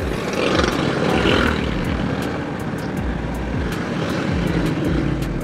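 Motorcycle engine running under way in traffic, its pitch rising and falling with the throttle.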